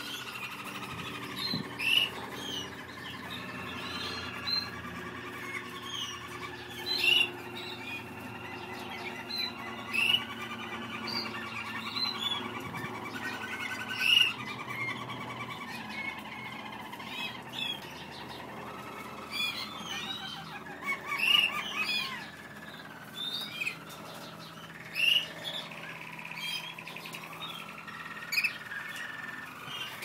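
Several German Roller canaries singing together, a continuous warbling, trilling song layered from several birds, with short, sharper, louder chirps standing out every few seconds.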